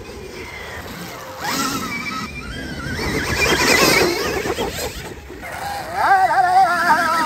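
Stark Varg electric dirt bike's motor whining, rising in pitch as it pulls away, then warbling up and down with the throttle near the end, over a rush of wind and tyres in the sand.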